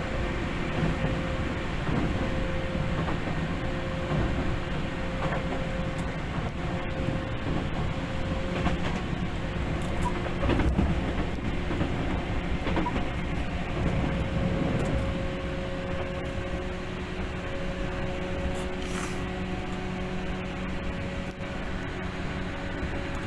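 Tokyu 8500 series electric train running at speed between stations, heard from inside the car: a steady rumble of wheels on rail with a steady hum from the running gear and scattered short clicks.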